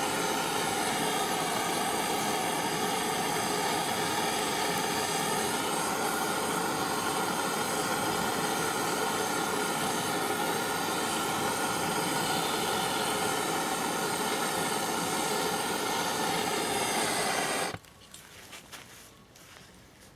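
A steady machine drone with a layered whine, holding one pitch for about 18 seconds, then cutting off abruptly.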